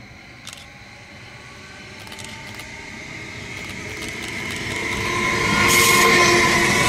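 A train approaching on the line, growing steadily louder until it is close about six seconds in, with a high steady whine over the rumble of its wheels.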